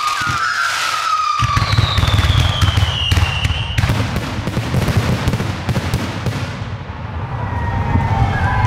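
Professional aerial fireworks going off. Whistling tones fall in pitch over the first few seconds. From about a second and a half in, a dense barrage of bangs and crackling shell bursts sets in and keeps going.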